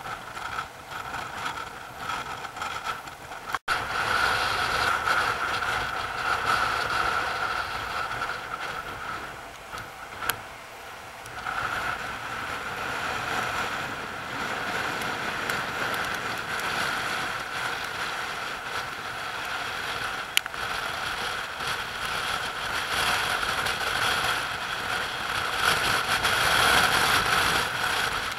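Steady rushing noise of sea water breaking and swirling over rocks, louder after a short gap about three and a half seconds in.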